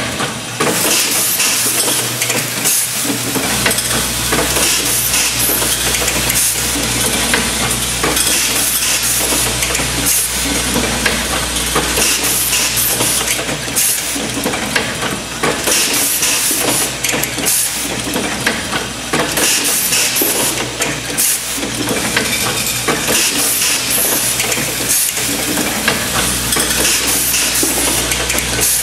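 Automated grommet dial-table assembly machine running: a steady clatter of small metal parts and hissing air from its pneumatic grippers and cylinders, with many small clicks. A low hum comes in about three seconds in.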